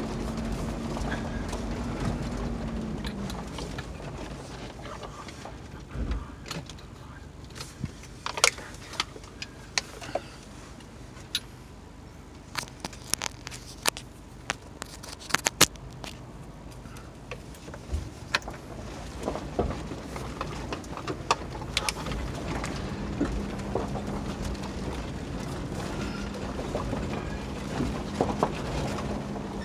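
A 2020 Kia 4x4 running slowly over a rocky dirt track, heard from inside the cabin. Its steady engine hum drops away about three seconds in and comes back near the end, with many sharp clicks and knocks scattered through the middle.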